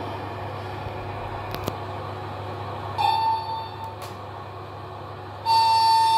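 Märklin gauge 1 E91 electric locomotive model's ESU sound decoder sounding its horn: a short blast about three seconds in and a long one starting near the end, over the steady low hum of its running sound.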